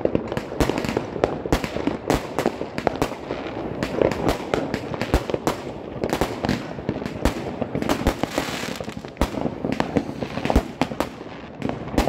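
Aerial fireworks bursting overhead: rapid, irregular bangs and crackles, several a second, without a break.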